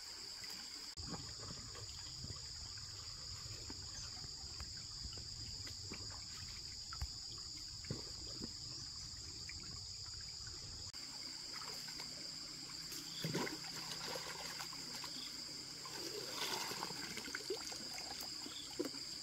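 Water trickling and flowing, under a steady high-pitched insect drone, with a few brief louder knocks in the second half.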